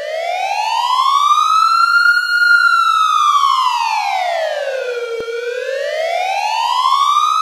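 A siren wailing, one tone rising and falling slowly: it climbs, drops to its low point about five seconds in, then climbs again.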